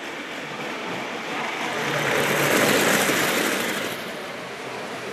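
Prewar Lionel Zephyr chrome streamliner model train running on O gauge three-rail track, its wheels rumbling louder as it comes close, peaking about halfway through and dropping back near the end.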